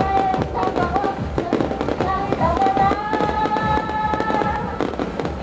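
Firecrackers crackling continuously and irregularly over loud music with singing played through a sound truck's speakers. A long note is held from about three seconds in to near the end.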